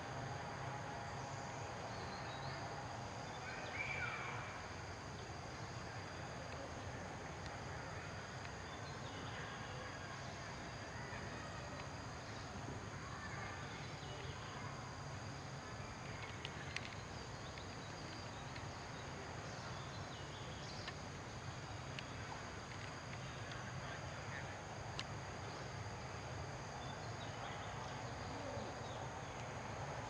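Forest ambience: a steady, high-pitched insect drone, with a short falling call about four seconds in and a few scattered small clicks.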